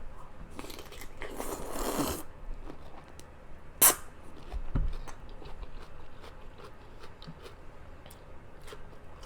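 A person eating: a second or so of noisy mouth sounds early on, one sharp loud crunching bite near four seconds in, then chewing with many small wet mouth clicks.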